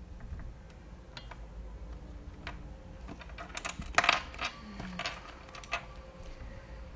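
Scattered sharp clicks and light knocks of small hard objects being handled, a few at first and then a quick cluster about four seconds in, the loudest of them.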